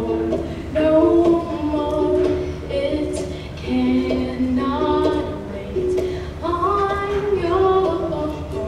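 A young woman singing a melody while strumming a ukulele to accompany herself.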